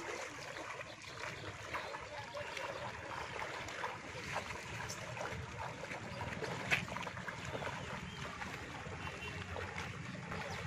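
Water sloshing and splashing around legs wading through knee-deep water, a continuous churning with small splashes throughout and one sharper click about two-thirds of the way in.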